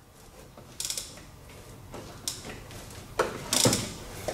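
Ratchet on the crankshaft pulley bolt clicking in several short bursts as the 1ZZ-FE engine is turned over clockwise by hand, letting the newly installed timing chain tensioner extend.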